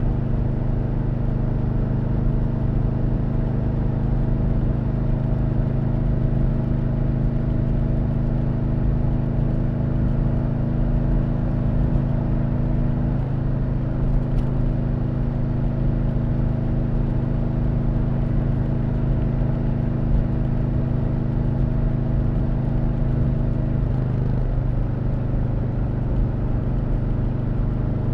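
Stock exhaust of a 2020 Harley-Davidson Low Rider S, its Milwaukee-Eight 114 V-twin running at a steady engine speed while ridden. The pitch shifts slightly about 13 seconds in and again near 24 seconds.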